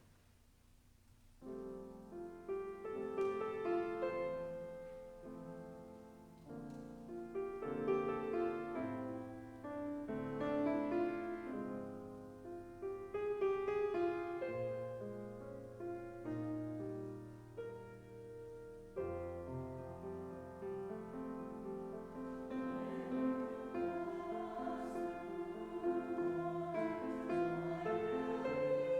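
Piano playing slow music in chords, beginning about a second and a half in; a deep bass note enters and the sound grows fuller about two-thirds of the way through.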